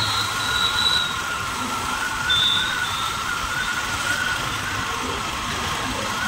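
Motorcycle running along at a steady speed, heard from the rider's position, with a steady high whine and a low rumble throughout. A brief high tone comes right at the start and another about two and a half seconds in.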